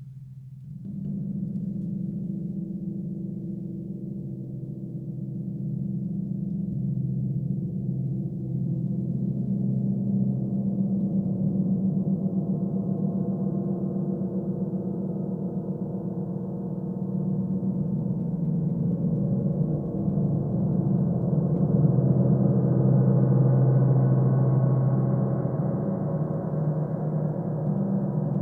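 Large gong played with soft mallets in a continuous roll. It builds into a sustained, deep wash that slowly swells louder and brighter.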